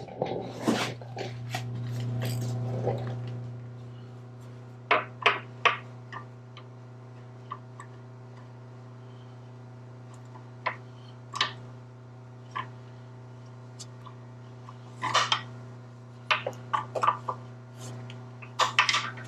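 Scattered sharp metal clinks and clanks of hand tools on steel bolts and parts, from wrench work during the teardown. A steady low hum runs underneath, louder in the first few seconds.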